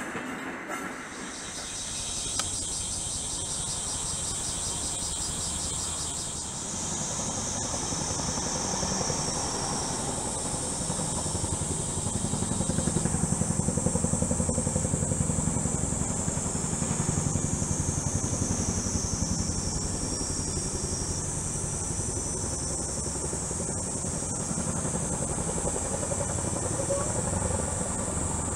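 CH-47 Chinook tandem-rotor helicopter running on the airfield for takeoff: a steady rotor thrum with turbine noise, growing louder toward the middle.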